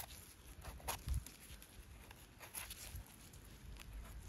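A few faint, short scrapes and rustles as gloved hands turn a porcini and scrape soil off its stem with a knife, over a low rumble.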